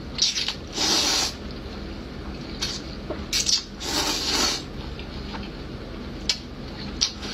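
A person slurping instant noodles in a series of loud, wet slurps, several in the first half, with quieter chewing and mouth clicks between.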